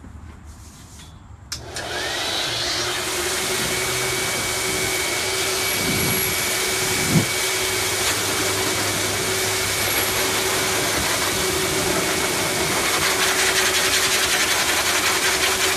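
A livestock blower switches on about a second and a half in with a click, then runs steadily: a loud rush of air with a steady motor whine as its hose blows dirt and hay out of a calf's hair. A brief knock about seven seconds in.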